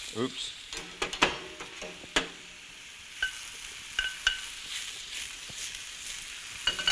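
Sliced mushrooms sizzling in oil in a frying pan, with a few sharp knocks of a utensil against the pan about one to two seconds in and a few light clinks later.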